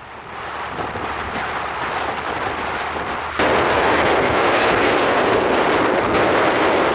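Wind rushing and buffeting over the microphone on a moving vehicle, over road and traffic noise. About three and a half seconds in it suddenly gets much louder and stays loud.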